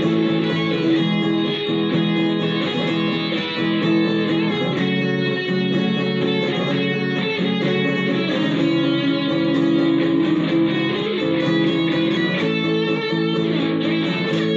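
Electric guitar played without a break, a steady run of picked notes and chords.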